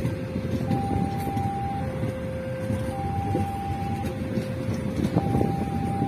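Level-crossing warning alarm sounding a steady two-tone hi-lo signal, each tone lasting about a second, over the rumble of passenger coaches rolling past on the rails.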